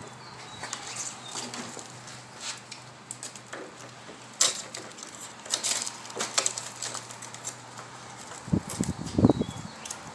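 Hard plastic being handled: bulb sockets twisted out of a headlight housing, giving scattered light clicks and rattles. There is a sharper click about four seconds in and a duller thump near the end.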